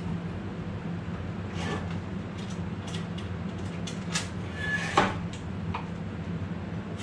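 Scattered clicks and knocks of a metal chop saw being handled and opened up, the loudest a sharp knock about five seconds in, over a steady low hum.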